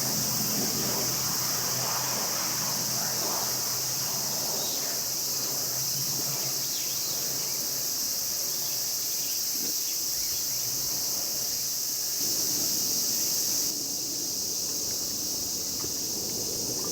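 Steady, high-pitched chorus of summer cicadas, with a faint low rumble underneath. The sound changes abruptly, slightly quieter, near the end.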